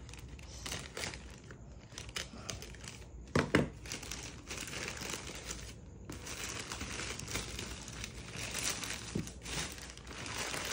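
Plastic courier mailer bag rustling and crinkling as it is torn open and a box is pulled out of it.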